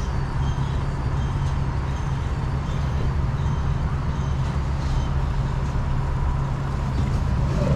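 A car driving at a steady speed: an even engine and road rumble that does not change.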